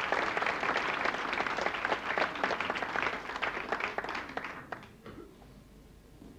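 Theatre audience applauding, many hands clapping, fading out about four and a half seconds in.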